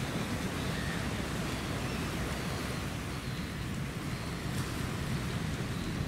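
Wind rumbling steadily on the microphone, low and gusty, over a noisy wash of sea along the shore.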